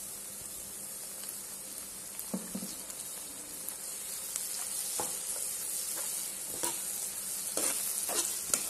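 Onions, green chillies and freshly added ginger-garlic paste sizzling steadily in hot oil in a kadai while a perforated steel ladle stirs them, with a few short scrapes and clicks of the ladle against the pan.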